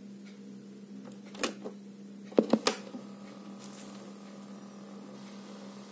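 Mechanical clicks of a Philips portable cassette recorder. A sharp click comes about a second and a half in as the cassette door is shut, and a louder cluster of clicks about a second later as the keys are pressed. A faint steady hum of the tape running follows, over a low hum that is there throughout.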